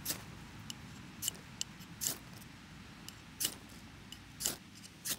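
Ferro rod struck with a striker to throw sparks onto leaf tinder for lighting a fire: about six short rasping scrapes, roughly one a second, with a few fainter ticks between.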